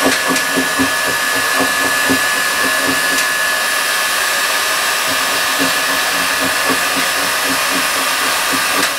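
Handheld electric heat gun running steadily, its fan blowing hot air with a steady high whine. It is heating old vinyl decals on a wooden cabinet so they bubble up for scraping.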